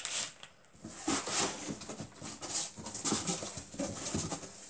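Cardboard box and a tape-wrapped plastic tub of coarse sea salt being handled: uneven rustling, scraping and knocking as the heavy tub is lifted out of the box.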